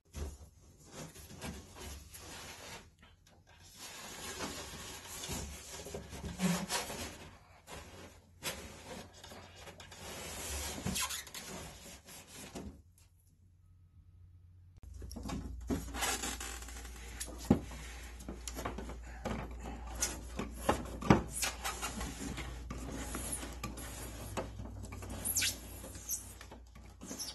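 Scraping and rubbing of hands working wood wall paneling and an Ethernet cable behind it, with scattered sharp knocks and taps. The sound stops for about two seconds near the middle, then goes on.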